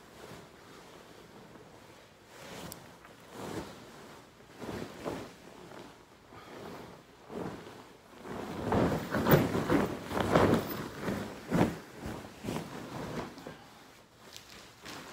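Hotel bed linen rustling as sheets and a duvet cover are pulled and spread over a bed, in uneven swells that are loudest through the second half.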